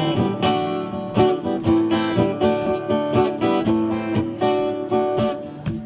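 Acoustic guitar strummed in a steady rhythm, an instrumental passage of chords with no singing.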